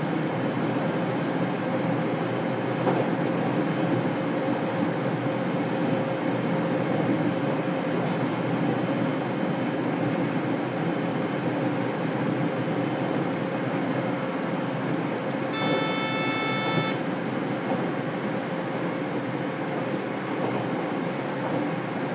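JR Kyushu 817 series electric train running at a steady speed, heard from inside the motor car: an even rumble of wheels and running gear with a constant hum. About three-quarters of the way through there is a short high tone lasting about a second.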